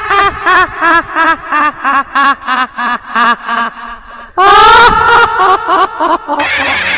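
A cackling laugh: a run of short, staccato ha-ha syllables, about three a second, stepping lower in pitch, then a longer, louder burst of laughter about four seconds in. Music comes in near the end.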